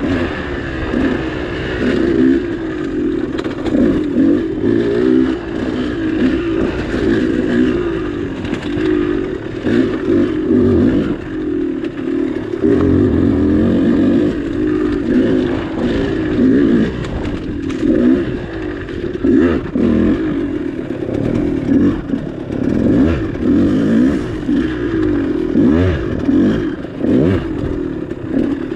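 KTM 200 two-stroke dirt bike engine, heard from the rider's seat, revving up and down continually as the throttle is worked along the trail, with some clatter and scraping from the bike.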